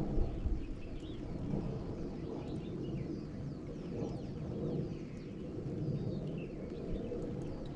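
Many small birds chirping over a steady low rumble.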